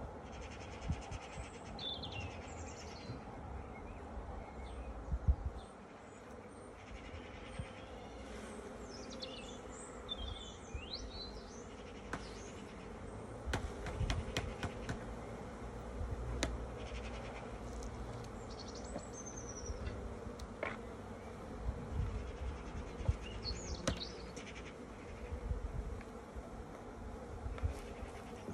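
Honeybees buzzing in a steady hum around an opened hive while brood frames are lifted out, with a few sharp clicks from the frames and hive being handled about halfway through.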